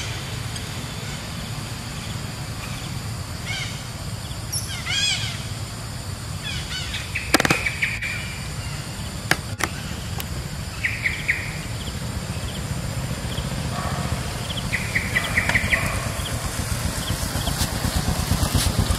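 Short high-pitched animal calls and quick chirpy trills over a steady low rumble, with two sharp clicks about halfway through.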